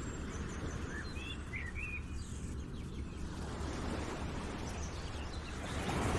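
Outdoor nature ambience: a steady rushing noise with a few short bird chirps in the first two seconds. Near the end the noise swells up.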